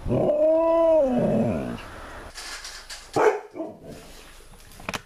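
Alaskan malamute giving one drawn-out vocal call about a second and a half long, holding its pitch and then sliding down at the end. A shorter, rougher sound follows a little after three seconds in.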